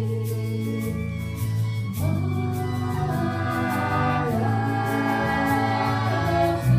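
Several voices singing held notes together, accompanied by an acoustic guitar and a hand drum keeping a steady beat.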